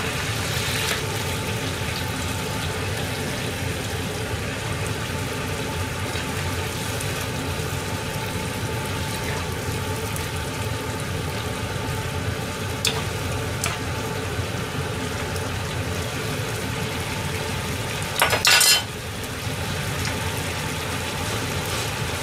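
Tomato meat sauce simmering in a frying pan while a metal ladle stirs it, with a few light clicks of the ladle on the pan over a steady hum. Near the end comes one brief, loud clatter of metal.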